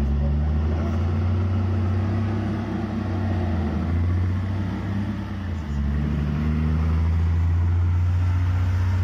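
Doosan-Moxy MT41 articulated dump truck's diesel engine running as the truck drives close by, a deep steady engine note. The note drops briefly about five and a half seconds in and then picks up again.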